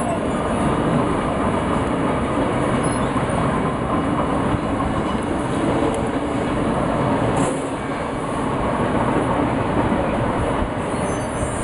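Intercity Notte passenger train moving on the rails, a steady run of wheel and rail noise.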